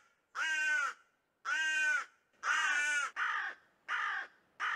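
Recorded carrion crow caws: a series of drawn-out caws, about one a second. From about the middle they come faster and overlap.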